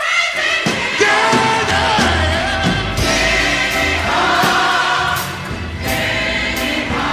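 Gospel choir singing with band accompaniment, the voices sustained and sliding in pitch over a steady bass.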